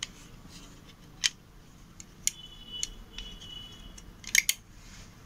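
Plastic clicks and snaps from a TV set-top box remote's casing being pried open and its shell halves, rubber keypad and circuit board handled. Single clicks about a second apart, then a quick double snap near the end, the loudest.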